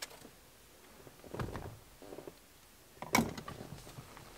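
The bottom cover panel of a pickup's center console bin being lifted out and handled: a soft knock about a second and a half in, then a sharper clack a little after three seconds, with small clicks after it.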